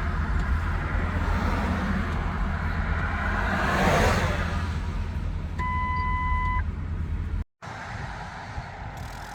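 Steady low road rumble with a vehicle passing, swelling and fading about four seconds in. A steady electronic beep lasts about a second past the middle. The sound then cuts out abruptly for a moment and comes back quieter.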